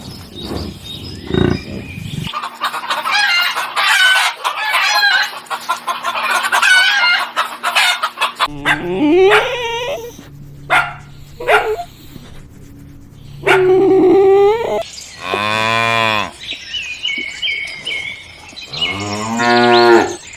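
Farm animals calling: busy high-pitched bird calls in the first part, then cattle mooing in several long calls in the second half.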